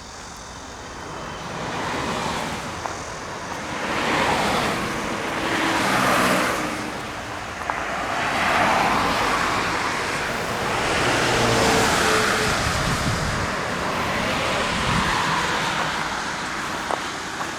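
Road traffic: several vehicles passing one after another, each rising and fading as it goes by.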